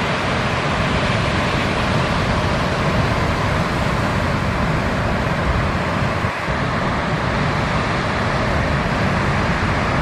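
Steady noise of ocean surf breaking, with wind on the microphone, dipping briefly about six seconds in.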